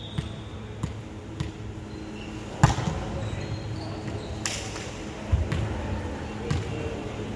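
A volleyball being struck during a rally on a wooden indoor court. One sharp smack about two and a half seconds in is the loudest, followed by several softer hits and thuds over the next few seconds.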